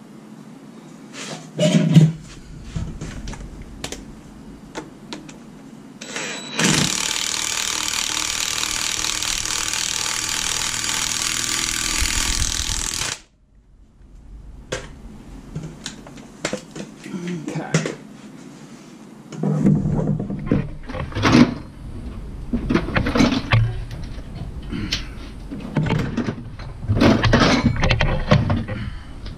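A cordless impact wrench runs steadily for about six seconds and stops suddenly, driving the crankshaft bolt into the harmonic balancer of a Jeep 4.0 inline-six. There is a loud knock about two seconds in, and irregular clanks and knocks of tools and parts in the second half.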